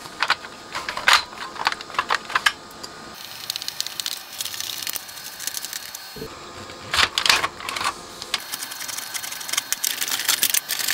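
Clicks, taps and light rattles of a plastic amplifier front panel and its circuit board being handled and fitted back together, with a dense run of fast small clicks near the end as a control knob is pushed onto its potentiometer shaft.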